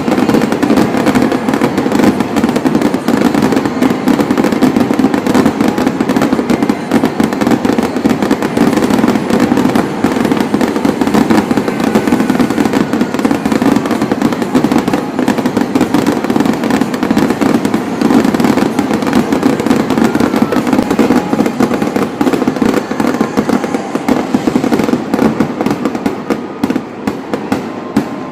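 Fireworks display going off in a rapid, continuous barrage of bangs and crackles that thins out near the end.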